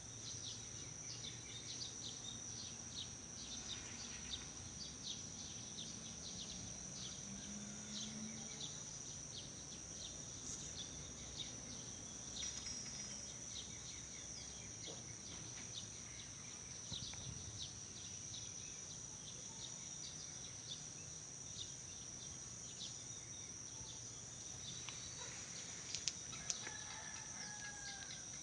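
Outdoor ambience: a steady high-pitched insect drone with many short chirps scattered over it, and two sharp ticks near the end.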